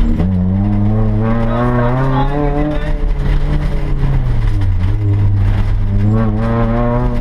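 Rally car engine heard from inside the cabin. It revs hard and rises in pitch for about three seconds, falls back, then climbs again near the end.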